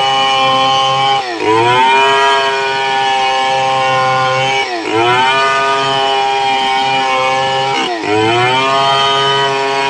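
Home-built two-stroke chainsaw modelled on the Stihl 070, running at high revs while ripping a medang log lengthwise into boards. The engine note dips briefly and recovers three times as the chain loads in the cut.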